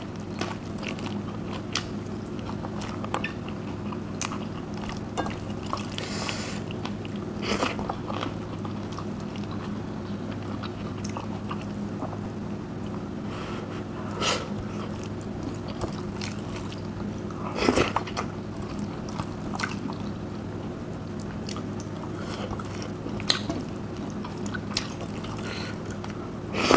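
Close-miked mouth sounds of a person eating rice and potato curry by hand: chewing, with scattered small clicks and a few louder bites. A steady low hum runs underneath.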